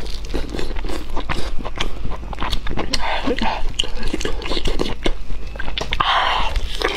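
Close-miked eating: biting and chewing braised, sauce-soaked offal, with many sharp wet clicks and smacks of the mouth, and louder bursts of mouth noise about three and six seconds in.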